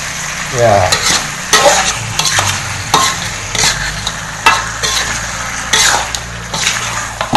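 Chicken pieces in spice paste sizzling steadily in a pan while they are stirred and turned over, with a scraping stroke about every second at uneven intervals.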